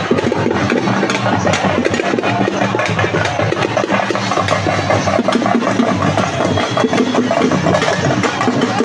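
Procession drum troupe playing fast, dense drumming, over a steady low drone like an idling engine.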